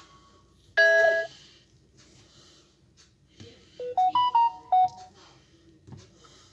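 Samsung Galaxy A12 phone playing electronic alert tones: a short chime about a second in, then a quick run of short notes stepping upward in pitch around four seconds in.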